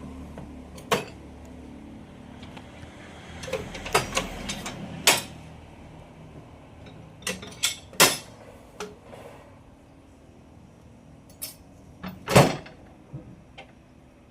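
Scattered sharp wooden knocks and clunks of sawmill timber being handled, about a dozen in all, the loudest near the end. A low machine hum dies away at the start.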